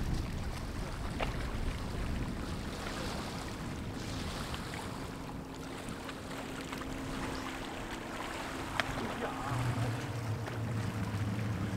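Wind noise on the microphone over open river water, with a steady distant motor drone coming in partway through and a deeper hum joining about nine seconds in.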